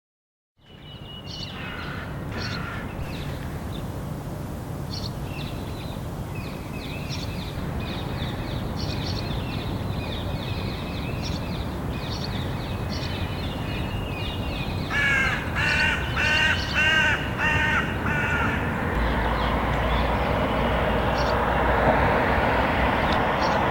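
Syrian woodpecker chicks calling repeatedly, with a run of about six louder calls, two a second, about two-thirds of the way in, over a steady rumble of city traffic that grows louder near the end.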